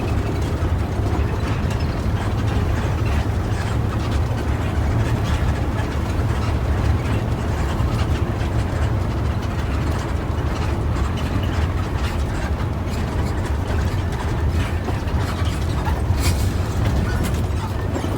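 Cabin noise inside a moving intercity bus: a steady low drone of engine and road with constant rattling and clicking from the cabin, one sharper rattle about sixteen seconds in.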